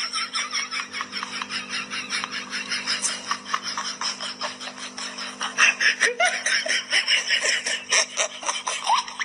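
A person giggling in a quick, steady run of short laughs.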